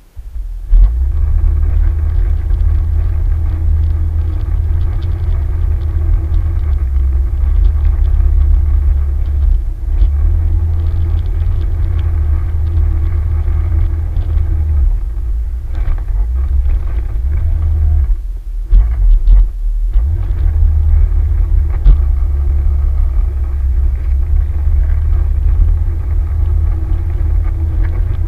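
Off-road vehicle engine running steadily under way, with a heavy low rumble. It eases briefly about two-thirds of the way through, then picks up again.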